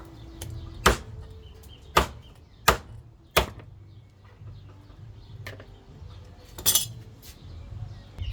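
A blade chopping through bony chicken pieces: four sharp chops about a second apart, then a further chop with a brief ringing edge a few seconds later.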